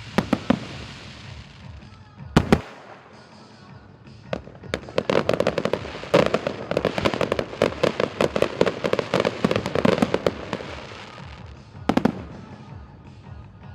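Fireworks going off: a few single bangs, then a dense run of rapid cracking and popping bursts from about five seconds in to about eleven seconds, and a last pair of bangs near the end. Music plays underneath.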